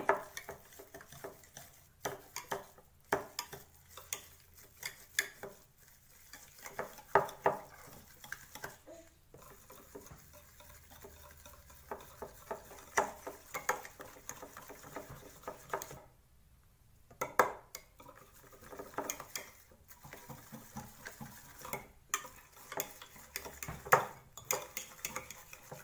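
Metal wire whisk beating thick hung curd in a glass bowl, whipping it smooth: irregular clinks and scrapes of the wires against the glass, with a short pause about two thirds of the way through.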